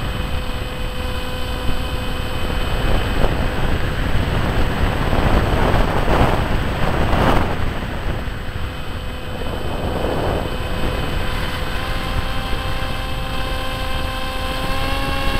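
Onboard sound of a HawkSky RC plane in flight: its electric motor and propeller whine steadily under rushing wind noise. The wind swells in gusts around the middle and again a little later.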